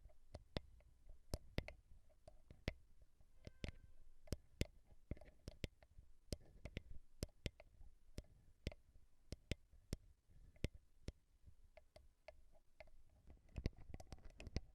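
Slow, irregular ASMR tapping on a microphone: sharp clicks about two a second, many with a soft low thump under them.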